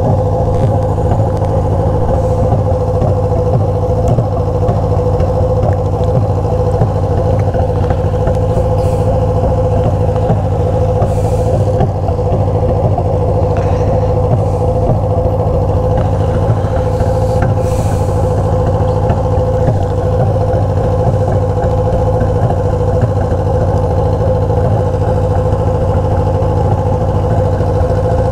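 Motorcycle engine with a straight-pipe exhaust idling steadily.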